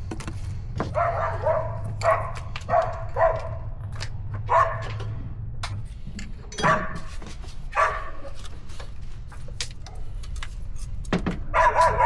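A dog barking, about eight short barks spaced unevenly, with sharp tool clicks in between and a low steady hum underneath.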